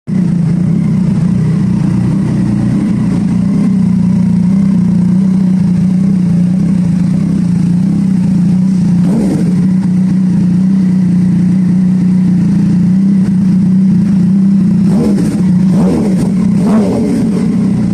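Yamaha MT-09's 847 cc inline-three running through an SC-Project aftermarket exhaust, idling steadily at an even pitch.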